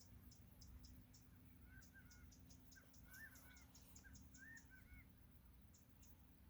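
Crickets chirping steadily, about three to four chirps a second, over a faint low hum. A bird gives short, quick call notes in three brief bursts in the middle.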